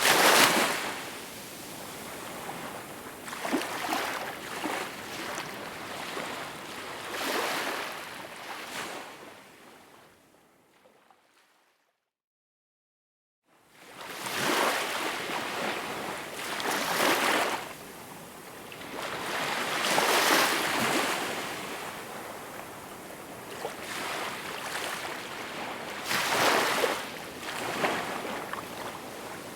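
Small waves washing ashore, each wash swelling and receding over a few seconds. The sound fades out to complete silence about ten seconds in and fades back in about three seconds later.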